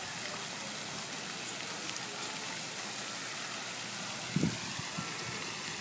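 Steady hiss of splashing water from a pond fountain, with a brief low bump about four seconds in.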